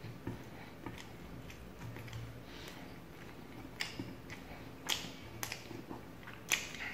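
Fingers picking at and tearing tandoori chicken lollipop meat on a plate: irregular soft clicks and taps, with a few sharper ones in the second half.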